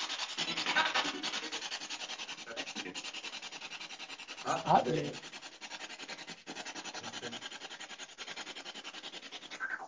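Ghost box (spirit box) sweeping through radio stations: a steady hiss of static, chopped rapidly and evenly as it scans, with a brief voice-like radio fragment about halfway through. It cuts off abruptly at the end.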